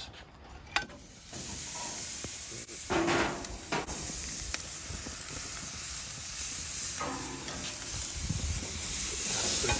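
Raw spatchcocked chicken sizzling on the hot grates of a gas grill. The steady sizzle sets in about a second in as the bird is laid down.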